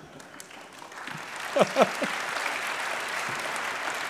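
Audience applauding in an auditorium. The clapping swells from about a second in, then holds steady.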